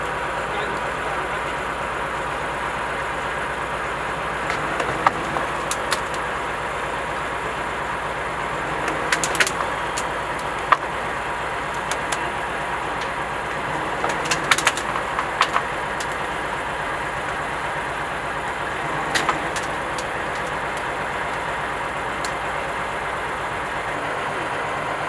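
Heavy recovery truck's diesel engine running steadily at idle, with several short sharp clicks and clanks scattered through.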